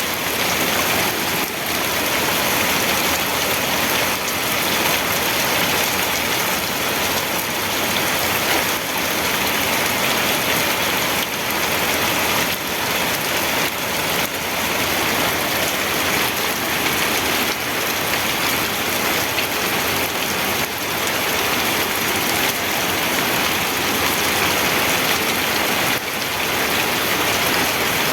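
Steady rain falling and pattering on a surface, an even hiss of many drops with no thunder.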